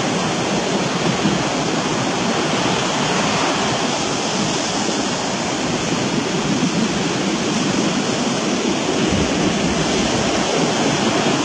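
Steady, even rushing noise that holds at one level throughout, with no distinct events.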